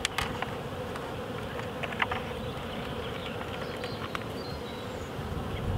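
Honeybees buzzing in a steady hum around an opened nuc hive, with a few light clicks as the wooden frames are prised apart and lifted out.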